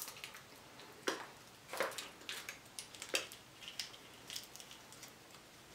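Cooked crab shell being cracked and picked apart by hand: sharp snaps about one, two and three seconds in, between fainter crackles.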